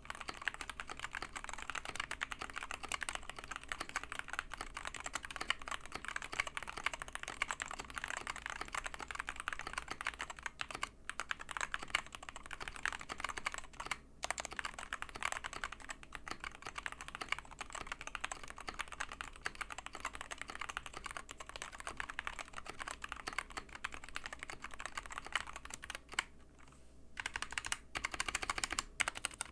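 Continuous fast typing on a Wooting Two Lekker Edition mechanical keyboard with Lekker linear analog switches, a dense stream of key clacks. It breaks off briefly twice, pauses for about a second and a half near the end, then resumes.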